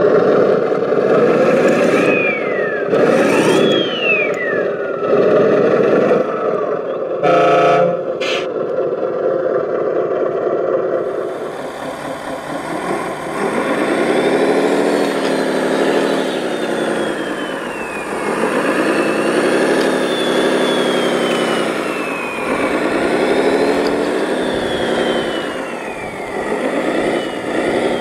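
Radio-controlled scale models at work. First comes a scale MAZ-537 8x8 truck's drive running, with several high whines falling in pitch and a short stacked tone about seven seconds in. Then, from about eleven seconds, a scale Komatsu WA600-6 wheel loader's engine sound rises and falls about three times as it works its bucket against a boulder, with high whines falling in pitch above it.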